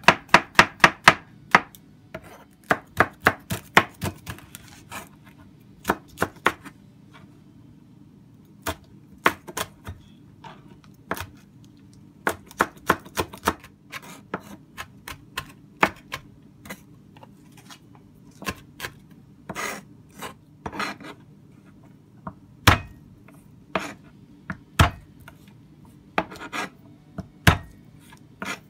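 Chef's knife chopping on a plastic cutting board, cutting shallot, chilies and garlic: quick runs of sharp knocks, about four a second, broken by pauses and single cuts.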